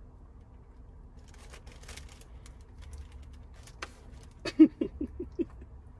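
Knife cutting fruit on a plate: scattered light clicks, then a quick run of about six sharper knocks near the end, over a low steady hum.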